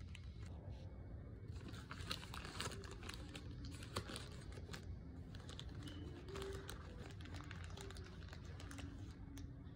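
Paper sandwich wrapper around a McGriddle rustling and crinkling as it is unwrapped and handled, in irregular small crackles mostly in the first half, over a low steady room hum.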